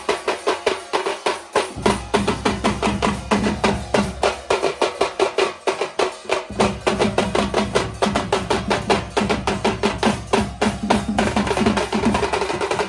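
A drum ensemble of large dhol barrel drums and smaller hand drums beating a fast, steady rhythm of several strokes a second. Near the end the sound thickens into a denser, fuller wash.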